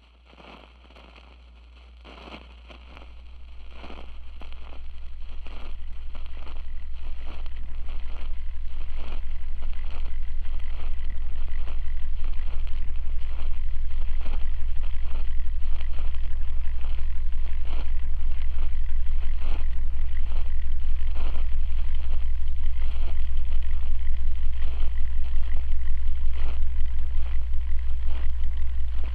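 A deep, steady drone that swells up from near silence over the first ten seconds and then holds loud, with soft irregular clicks or taps over it about once or twice a second.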